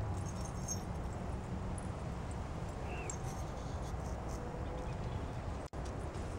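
Steady low outdoor background rumble, with a faint short chirp about three seconds in. The sound cuts out for an instant near the end.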